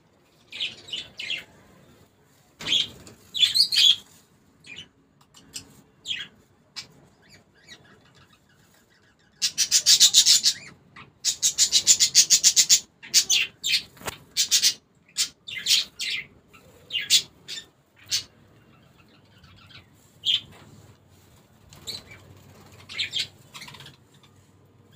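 Pencil scratching on paper in short strokes, with a stretch of rapid back-and-forth strokes, about six a second, in the middle while tree trunks are shaded in.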